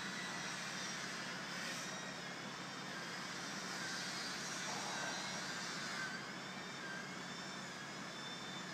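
Steady construction-site background noise: a constant mechanical drone with faint wavering high tones over it.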